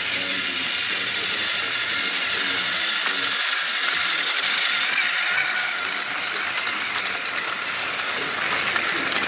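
Battery-powered TOMY Trackmaster Gordon toy engine's small electric motor whirring, with its train of plastic cars rattling along plastic track as it passes close by, loudest a few seconds in.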